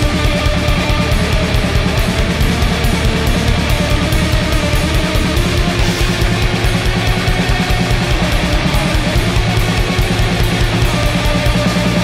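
Black/doom metal recording: distorted electric guitar and bass over a drum kit, dense and loud, driven at a fast, even pulse.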